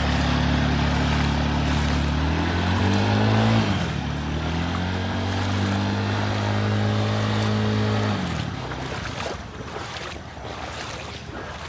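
Vehicle engine running close by in flood water: it revs up a couple of seconds in, settles, holds steady, then fades away about two-thirds of the way through, over the wash of water.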